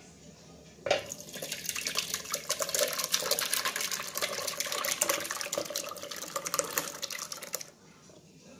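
A liquid Jell-O, cream and fruit-cocktail mixture pouring from a glass bowl into a ring mould: a continuous splashing pour that starts abruptly about a second in and stops near the end.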